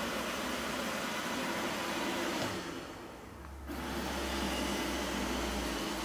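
VANiGO robot vacuum running with a steady noisy hum. The sound dips and turns muffled for about a second a little past the middle, then comes back.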